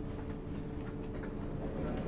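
Interior of a JR 651 series electric train car: a steady electrical hum from the onboard equipment, with a few faint ticks and clicks.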